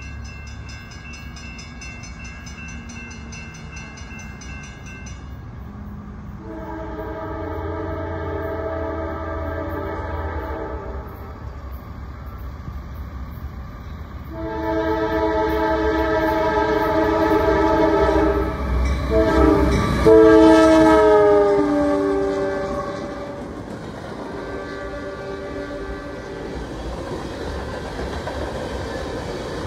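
Norfolk Southern freight locomotive's air horn sounding two long blasts, a short one and a long one, the grade-crossing signal, its pitch dropping on the last blast as the locomotive passes close by. The mixed freight cars then rumble and clatter past.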